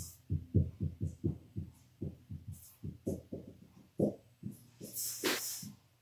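Dry-erase marker writing on a whiteboard: a run of short, low knocks, about two to three a second, as the strokes and dots hit the board. There is a brief hiss about five seconds in.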